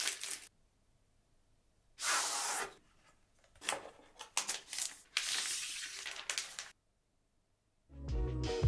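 Unboxing handling noise: a short rasping slide of packaging about two seconds in, then about three seconds of a plastic protective sleeve rustling and crinkling as the tablet is lifted out of its box, with silent gaps between. Music comes in near the end.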